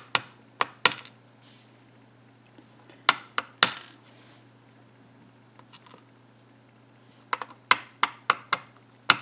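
Pin tumblers from a lock plug being tipped out and dropping onto a hard surface: about a dozen sharp, small metallic clicks in scattered groups, with a quick run of them near the end.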